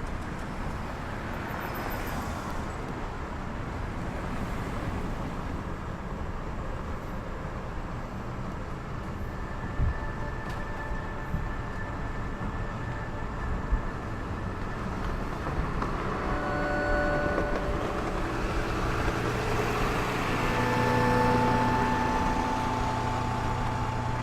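Steady street traffic noise. From about sixteen seconds in, held electronic tones at several pitches come in over it.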